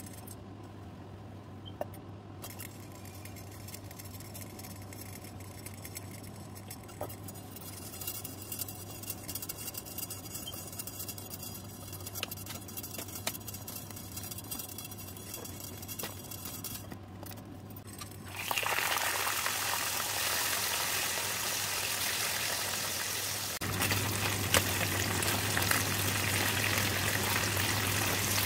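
Mackerel pieces frying in a pan of hot oil: a loud, steady sizzle that starts suddenly about two-thirds of the way in. Before that, quieter cooking sounds from pots on a stovetop over a steady low hum, with oil being poured into a pot midway.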